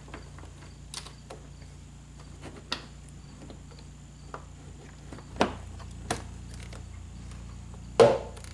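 Plastic tail-light housing of an aftermarket VLAND smoked tail light knocking and clicking against the car body as it is lined up and pressed into its opening, with a few scattered light knocks and a sharper, louder knock near the end as it is pushed home. A faint steady hum runs underneath.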